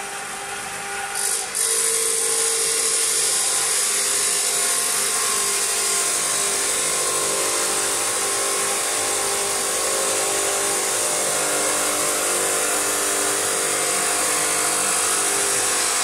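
Spindle of a 6090 CNC router running at high speed while its engraving bit cuts a design into a wooden board: a steady high-pitched whine with cutting noise, growing louder about a second and a half in.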